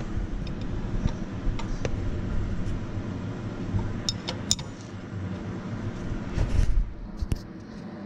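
Wrench on a serpentine belt tensioner, metal clicking and knocking as it is levered to slacken the belt: a few sharp clicks, then a louder thump near the end, over a steady low rumble.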